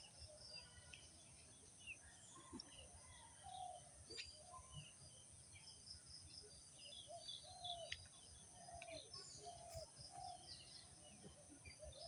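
Faint birdsong: several birds chirping with many short high notes, and lower short calls repeating about once a second.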